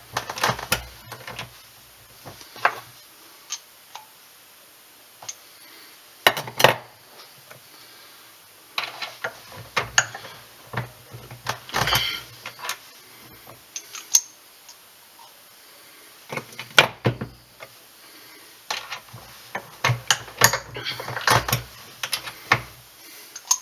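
Irregular metallic clicks and clacks of a reloading press as handgun cartridges are run through a factory crimp die. Loaded rounds clink as they are handled and dropped into a pistol barrel to check their fit.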